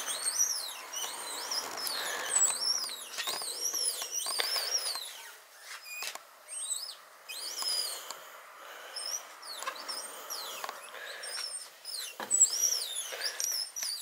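Manual wheelchair rolling across a concrete floor, its wheels giving a high, rhythmic squeak, about two rising-and-falling squeaks a second, that pauses briefly midway.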